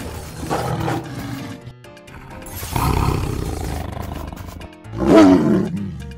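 Big-cat roar sound effects, lion and tiger, several in a row, the loudest about five seconds in and falling in pitch, over background music.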